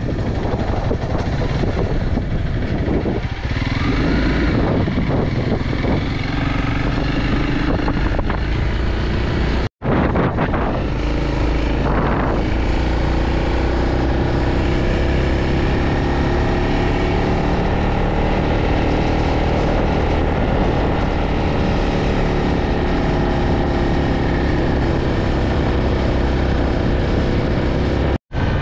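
Adventure motorcycle engine running steadily while riding, with wind noise on the microphone. The sound breaks off for a moment about ten seconds in and again near the end.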